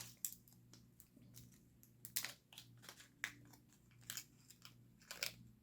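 Faint, scattered clicks and crinkles of small RC servo horn parts and their packaging being handled.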